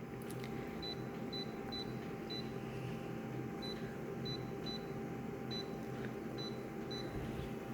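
About a dozen short, high electronic beeps at irregular intervals, over a steady low hum.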